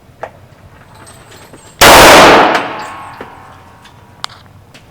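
A single shot from a 9mm Glock 17 pistol, about two seconds in. It is loud enough to clip the recording and is followed by an echo that dies away over about a second.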